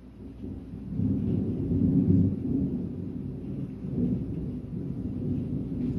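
Thunder rolling: a low rumble that swells about a second in, peaks around two seconds, and keeps rolling with smaller swells.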